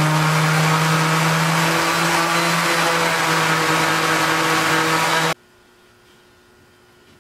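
Handheld power tool's motor running steadily at one pitch while held to the end of a cedar rail, cutting off abruptly about five seconds in; only faint sounds follow.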